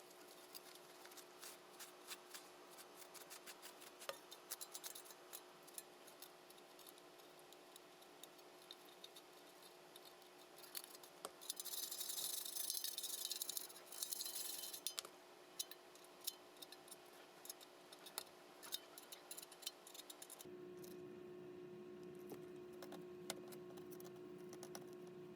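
Faint small clicks and taps of hand tools working on a laptop top case. About halfway through comes a scratchy hiss lasting about three seconds, and a steady low hum sets in near the end.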